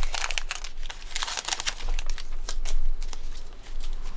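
Foil booster pack wrapper crinkling in the hands, with irregular crackles and rustles as the pack is opened and the Pokémon cards inside are handled.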